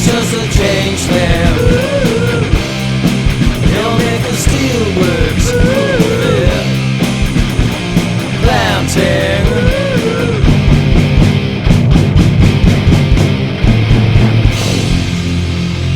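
Loud rock band music with a bending melodic lead line over bass and drums for the first ten seconds or so, then a busier drum passage near the end.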